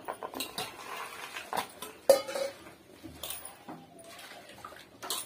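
Stainless steel pot and utensils clinking and knocking as spinach leaves are pressed into the pot by hand, with one loud clank that rings briefly about two seconds in.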